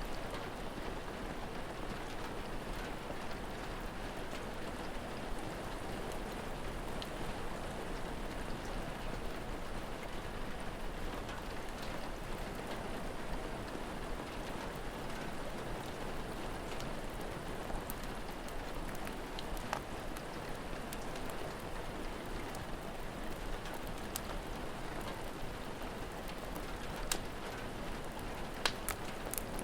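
Steady rain falling and pattering on a surface, with a few sharp pops of a crackling fire, most of them in the second half.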